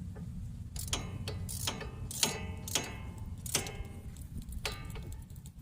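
Ratchet wrench with a short 15 mm socket being worked on a car's wheel-hub bolts, giving bursts of metallic pawl clicks with each swing, uneven in spacing, each click ringing briefly.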